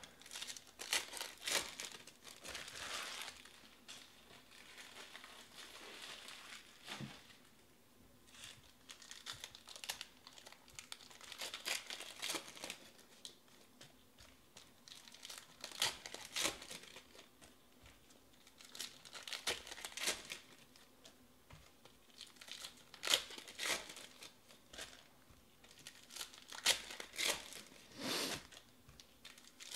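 Foil wrappers of Panini baseball card packs crinkling and tearing as the packs are ripped open by hand, in irregular bursts with short lulls between.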